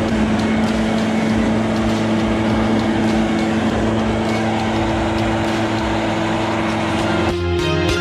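Leaf blower fitted with an air-jet snow shovel attachment running steadily, blowing snow off steps, a constant rushing noise with a steady hum. A little after seven seconds in it cuts off and music takes over.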